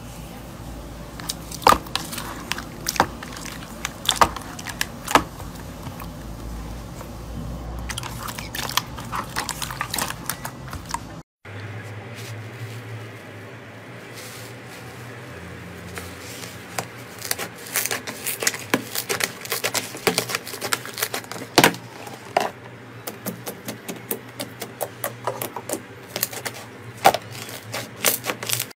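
Hands pressing and squishing slime, with many sharp little pops and crackles as trapped air bursts. After a brief break about eleven seconds in, a hand works a tub of crunchy bead-filled slime, and the crackling becomes denser.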